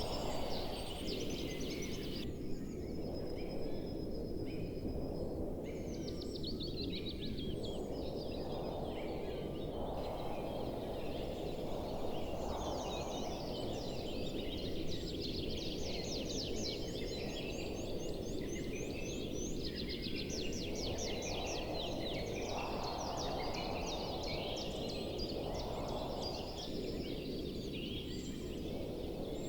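Many birds chirping and trilling over a steady low rushing background that swells every few seconds.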